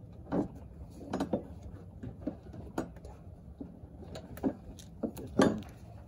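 Irregular clicks and knocks of hand work at the top opening of a truck's fuel tank as it is being changed, parts and tools knocking against the tank; the loudest knock comes about five seconds in.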